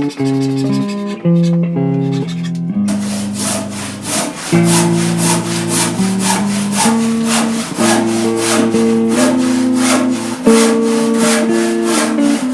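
Acoustic guitar music. From about three seconds in it is joined by a rhythmic rasping of a handsaw cutting wood, about two to three strokes a second.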